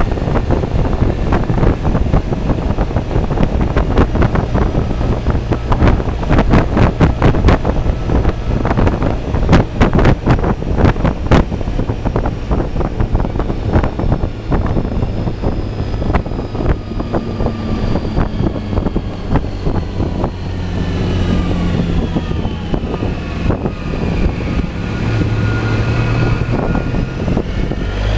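Suzuki Burgman 650 scooter's parallel-twin engine and road noise on the move, with wind buffeting the microphone hard for the first half. From about halfway the buffeting eases and the engine's pitch falls as the scooter slows, settling to a low, steady hum near the end.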